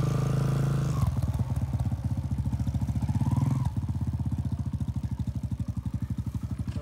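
Small Kawasaki KLX dirt bike's single-cylinder four-stroke engine riding at low revs. It eases off about a second in to a slow, even putter, with a short rise in revs a few seconds in before settling again.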